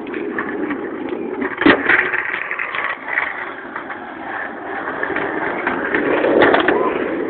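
Skateboard wheels rolling on pavement with a steady rumble, a sharp clack about a second and a half in, and a louder stretch of rolling near the end.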